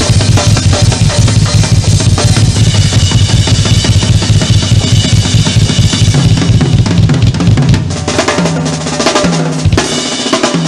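Drum kit played fast and busy: rapid strokes on snare, toms, bass drum and Zildjian cymbals. About eight seconds in, the bass drum drops away and the pattern thins out.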